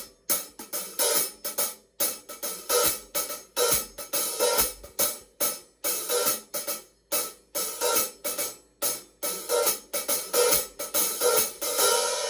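Paiste 2002 15-inch Sound Edge hi-hats played with sticks in a quick, even pattern of short strokes, about three to four a second, opening into a continuous wash near the end.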